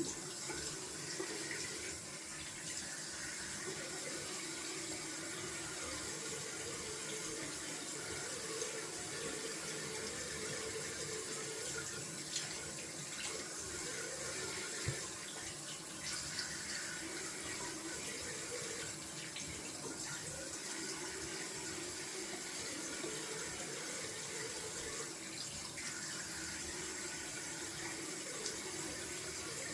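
Bathroom sink tap running steadily while the face is rinsed with cold water after a shave, with a few faint brief splashes along the way.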